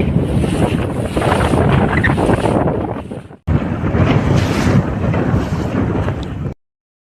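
Strong wind buffeting the microphone over the rush of a patrol boat running through rough, choppy sea. The sound drops out briefly about three seconds in and cuts off near the end.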